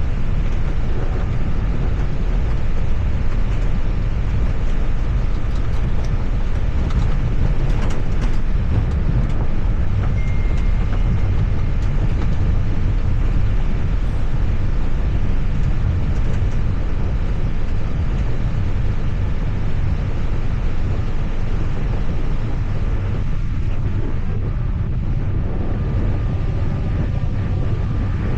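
Steady, loud low rumble of an airliner's flight deck during the landing: airflow and engine noise with no break.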